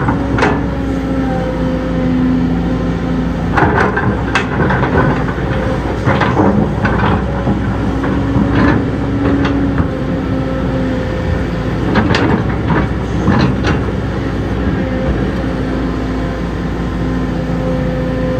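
Diesel engine of heavy earthmoving machinery running steadily, with irregular metallic clanks and knocks from the machine working.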